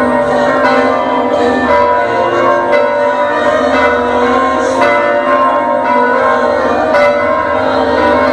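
Church bells ringing continuously, many bell tones overlapping and hanging on without a break.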